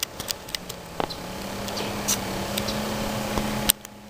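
Water splashing and sloshing in a plastic bucket as a hand reaches in among live bass, with scattered small splashes; the noise cuts off suddenly near the end. A steady low hum runs underneath from about a second in.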